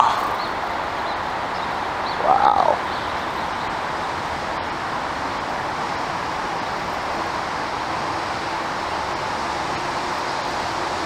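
Steady rushing background noise outdoors. About two seconds in, a single short, harsh bird call rises and falls in pitch.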